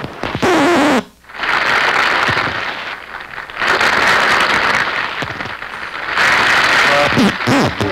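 Loud crackle and hiss of a gramophone record's surface noise. It cuts out briefly about a second in, and short warbling tones sound near the start and near the end.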